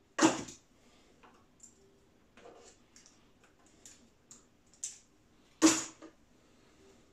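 Small plastic spring clamps being taken off a glued balsa fuselage: two loud sharp clacks, one just after the start and one about five and a half seconds in, with lighter clicks and taps between.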